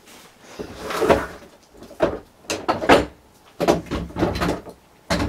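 Irregular knocks and clatter of clamps being picked up and handled, several short loud bumps in a row.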